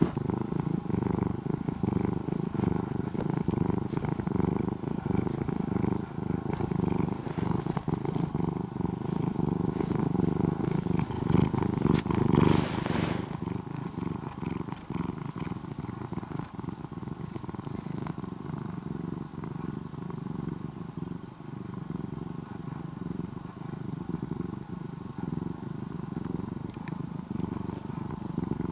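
Orange-and-white cat purring close up: a steady, continuous pulsing rumble, the 'engine sound'. About twelve seconds in there is a brief burst of noise.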